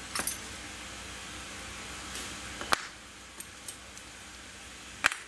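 Sharp clicks and taps of small brass clockwork parts and metal tools being handled and set down on the work surface, a handful of separate clicks over a steady background hiss.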